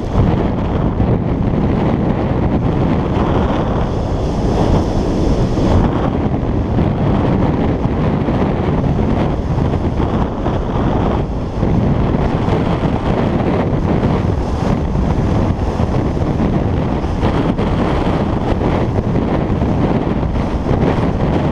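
Wind buffeting the microphone of a camera carried by a skier on a downhill run, with skis hissing over hard-packed snow. A sharper hiss comes in for a couple of seconds about four seconds in.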